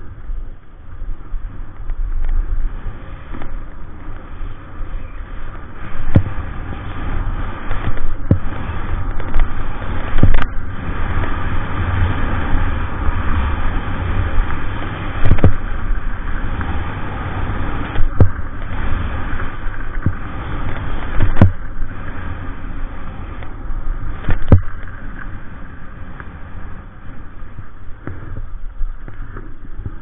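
Skis scraping and hissing over groomed snow while skiing downhill, with wind rumbling on an action camera's microphone and a sharp knock every two to three seconds.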